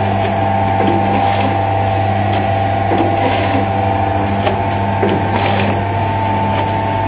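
Granule packaging machine running: a steady mechanical hum with faint, irregular clicks.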